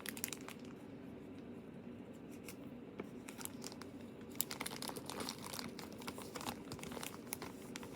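Plastic blind-box packaging crinkling and tearing as it is opened by hand. The crackles are sparse at first and grow dense about halfway through.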